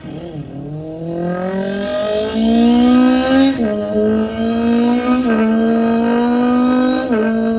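A person imitating a car engine with their mouth: one continuous buzzing vocal tone that climbs in pitch as the 'engine' revs up, then drops back in pitch three times like gear changes, holding steady between the drops.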